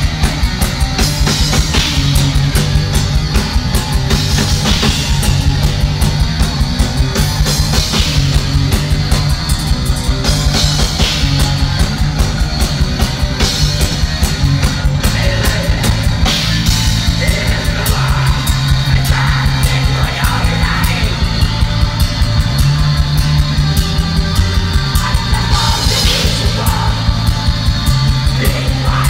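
Black metal band playing live: fast drumming under distorted guitar and bass riffs, with the singer's harsh shouted vocals over them at times.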